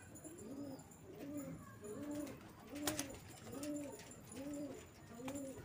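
Domestic pigeon cooing in an even series of low coos, each rising and falling in pitch, a little more than one a second. A brief sharp click sounds near the middle and another near the end.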